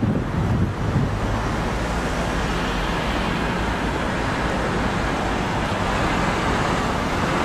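Steady rushing outdoor noise with no clear engine note, with a few low buffets in the first second.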